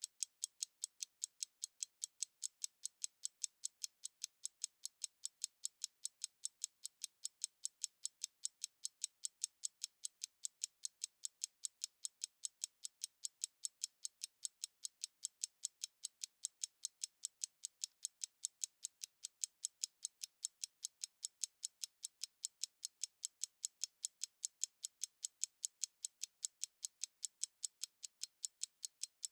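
Analog stopwatch ticking: rapid, evenly spaced, sharp light ticks, several a second, with no low end.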